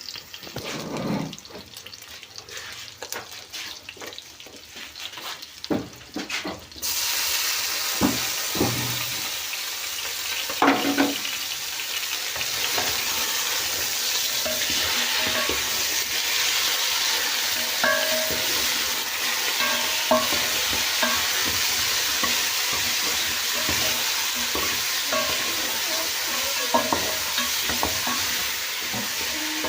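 Chicken frying in a pot of hot oil, with a utensil stirring and knocking against the pot. About seven seconds in, a loud, steady sizzling starts suddenly and carries on, with occasional knocks from stirring.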